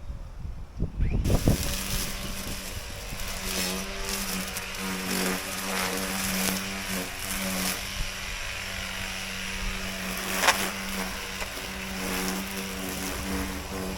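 Gas lawn mower engine running steadily, with a constant hum.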